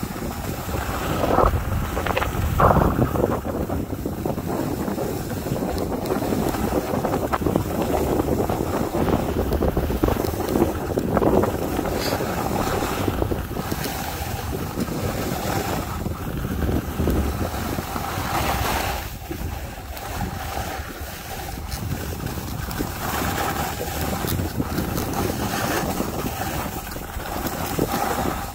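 Wind rushing over the microphone of a skier moving downhill, rising and falling in strength, mixed with the hiss and scrape of skis carving on groomed snow.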